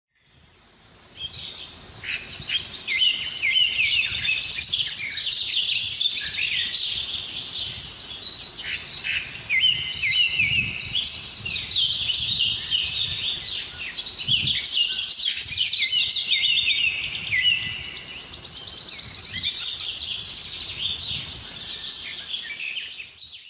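Many small birds chirping and twittering at once, a dense chorus of short overlapping calls. It begins about a second in and cuts off abruptly at the end.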